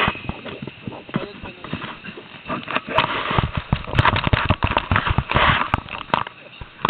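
Irregular knocks, clicks and rustling close to the microphone, thickest about three to five and a half seconds in: handling noise from the camera being moved.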